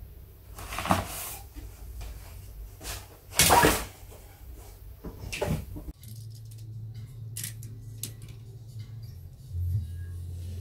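Bags and gear being pulled and shifted on closet shelves: several short rustling, scraping bursts, the loudest about three and a half seconds in. After about six seconds, a low steady hum with faint light clicks.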